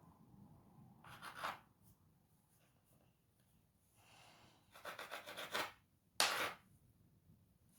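Knife cutting through rolled half-cake dough on a board: a few separate scraping strokes, the sharpest and loudest about six seconds in.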